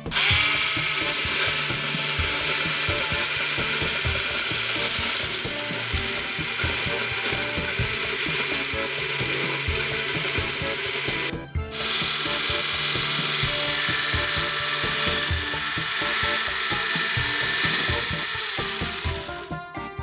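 Electric hand blender with a whisk attachment running, whipping instant coffee, sugar and cold water into foam in a plastic beaker. The motor's whir is steady, cuts out for a moment a little past halfway, starts again, and winds down near the end.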